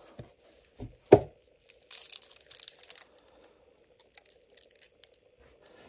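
Handling noise from gloved hands and a stainless-steel diver's watch with its box. There is one sharp knock about a second in, then about a second of cotton-glove rustling and a few light clicks. A faint steady electrical hum from the recording equipment runs underneath.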